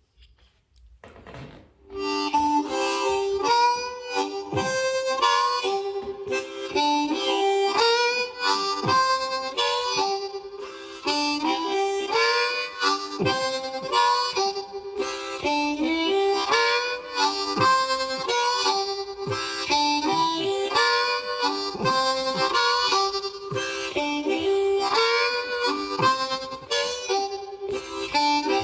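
Solo blues harmonica playing a short riff over and over, with held, bending notes; it begins about two seconds in.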